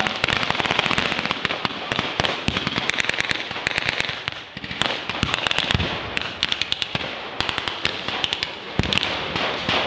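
Blank gunfire from rifles and machine guns: a dense, continuous crackle of overlapping shots, with quick runs of automatic fire.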